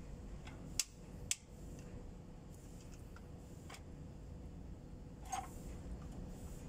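Sharp metallic clicks from a long torque wrench tightening the cylinder head bolts on a Mercedes-Benz Actros engine: two clicks about a second in, half a second apart, then a couple of fainter clicks later, over a low steady background hum.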